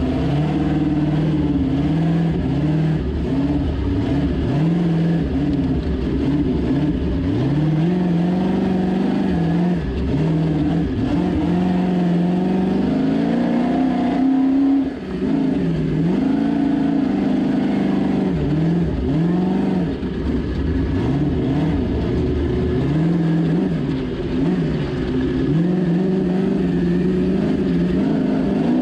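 Ultra4 off-road race car's engine heard from inside the cockpit, revving up and down as the throttle is worked at low speed on a rough trail, with a few brief lifts off the throttle.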